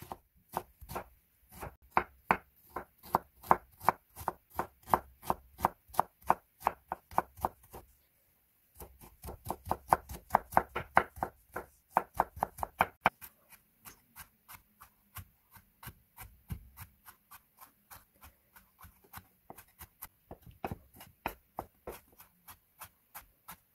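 Chef's knife mincing julienned carrot on a wooden cutting board: a steady run of sharp knocks, about three a second. There is a short pause about eight seconds in, and the strikes grow softer in the second half.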